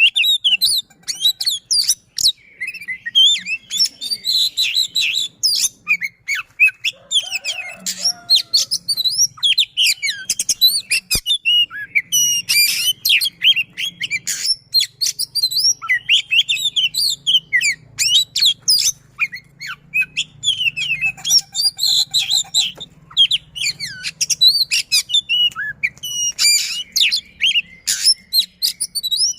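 Oriental magpie-robin (kacer) singing a fast, dense song of high whistled notes, rolling trills and sharp 'shot' notes, with only short pauses. This is the kind of close-packed, persistent song that keepers play as a lure to set other kacer singing.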